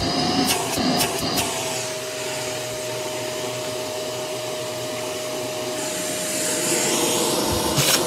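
Shark Navigator upright vacuum running with a steady motor whine over a rush of air. Short clacks and knocks come in the first second and a half and again at the very end, and a high hiss of air swells about six seconds in.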